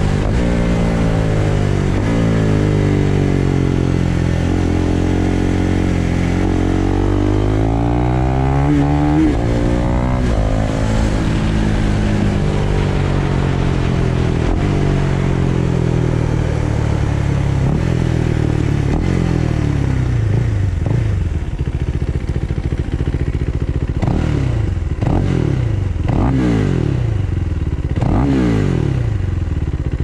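Husqvarna Vitpilen 401's single-cylinder four-stroke engine on the move, its pitch climbing through each gear and dropping back at every shift. In the last third come a run of short, quick revs with sharp clicks between them.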